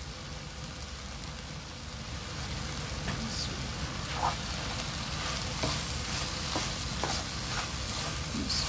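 Mixed vegetables sizzling steadily in a wok over a gas flame. From about three seconds in, a wooden spatula stirring them gives scattered light taps and scrapes against the pan, more often towards the end.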